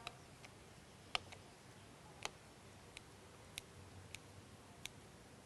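Faint, irregular light clicks and taps, about ten of them, from a knife tapping a board or plate while cutting soft roasted eggplant into small pieces.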